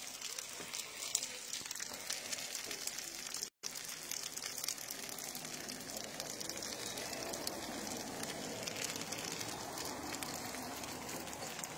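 Chicken pieces, red onion and capsicum sizzling on a gas barbecue's flat hotplate: a steady crackling hiss that cuts out for a moment about three and a half seconds in.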